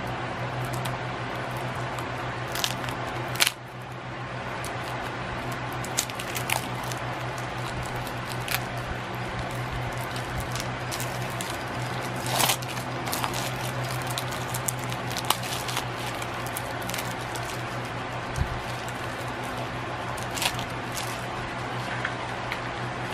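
Cellophane wrap being peeled off a playing-card box: scattered crinkles and crackles, the sharpest about three and a half seconds in, over a steady low hum.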